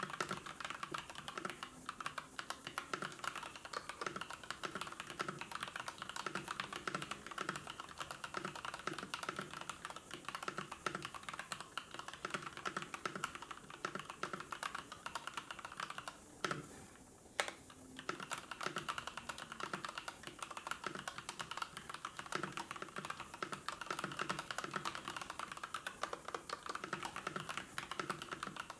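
Typing on a computer keyboard: a quick, continuous run of keystrokes, with a short pause about two-thirds of the way through broken by a couple of single clicks.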